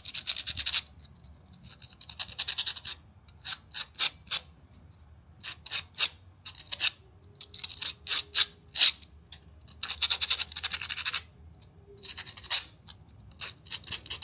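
A hand-held black abrasive pad scuffing back and forth over a resin-tape grip wrap on a tool handle, in a series of scratchy strokes: some quick and short, a few longer runs of about a second, with brief pauses between.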